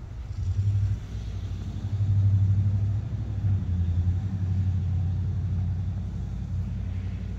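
The exhaust of a 1965 Shelby GT350 tribute car, running with a steady deep rumble at the rear. It swells louder twice, briefly about half a second in and again for about a second from two seconds in.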